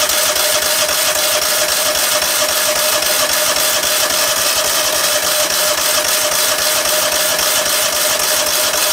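Electric starter cranking the engine of a Cub Cadet HDS 2145 riding mower off a jump-starter pack: a steady whine with rapid even pulses, held for several seconds and cut off abruptly near the end. The engine is flooded with fuel and does not start.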